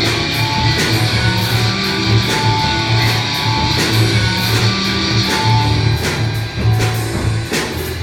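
Rock music played by a robot band: electric guitar over a pulsing bass line, with regular sharp percussive hits.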